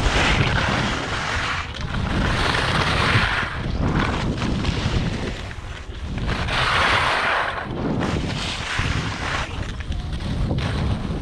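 Wind buffeting the microphone while skiing downhill, with the rushing hiss of skis sliding and carving over snow swelling up several times.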